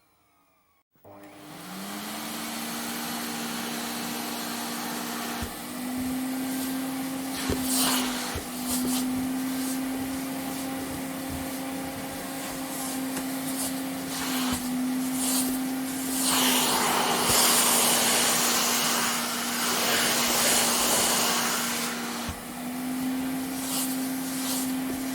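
Vacuum cleaner switched on about a second in. Its motor whine rises in pitch as it spins up, then runs steadily. The rushing air noise swells and falls, loudest in a stretch about two-thirds of the way through.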